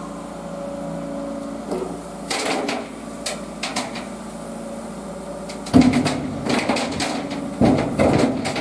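Diesel engine of a road-rail excavator running steadily, with scattered knocks and metal clanks from track work. A loud, heavy clattering of repeated impacts starts about two thirds of the way in.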